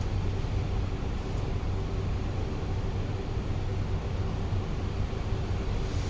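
Steady low hum and rushing noise inside a KSF C151A metro train car standing at a station before departure, with the onboard equipment running.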